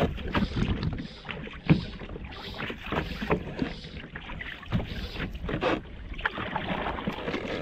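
Small waves slapping and splashing irregularly against a kayak's hull, with a paddle dipping into the water near the end and light wind on the microphone.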